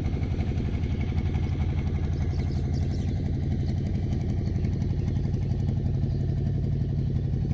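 A small engine running steadily at a low, even idle-like pace.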